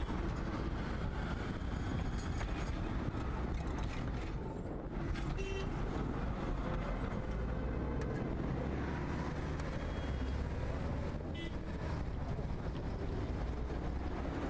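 Trams and road traffic at a busy street junction: a steady rumble of wheels and engines, with a faint whine rising in pitch near the end.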